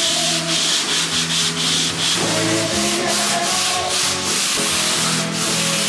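Hand sanding of drywall compound on a wall with a sanding sponge: a scratchy rubbing in quick, rhythmic back-and-forth strokes.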